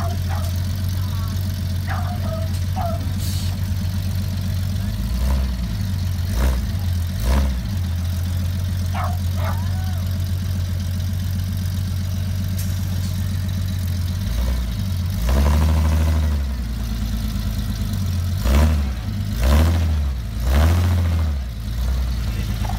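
Rock-crawling buggy's engine running at a low idle under crawling load, with repeated throttle blips as it climbs a rock face. There are a few short revs early on, a longer rev about two-thirds of the way through, and three quick ones near the end.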